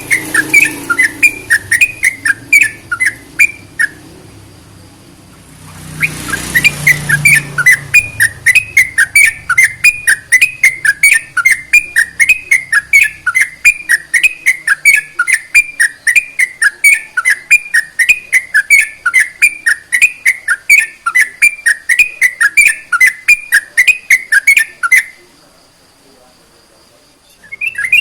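Yellow-vented bulbul (trucukan) singing a fast, even series of short whistled notes, about three or four a second. It pauses about four seconds in, resumes with a brief low rumble behind it, and stops a few seconds before the end.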